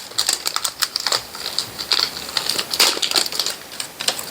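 Plastic packaging being handled and unwrapped by hand: irregular crinkling and rustling with small crackles and clicks.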